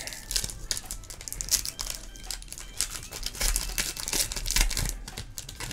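Foil wrapper of a Pokémon TCG Battle Styles booster pack crinkling and crackling irregularly as it is handled and torn open by hand.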